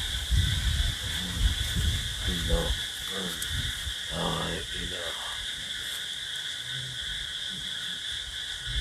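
Steady high-pitched night-time chorus of calling insects. Low rumbles on the microphone in the first two or three seconds, and a person's voice sounding briefly twice, about two and a half and four seconds in.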